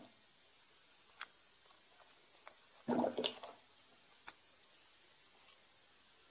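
S-shaped twin-bubble airlock on a fermenting beer gurgling once, about three seconds in, as a burst of CO2 pushes through its water, with a few small plinks in between. This is the sign of active fermentation, with the yeast giving off plenty of CO2.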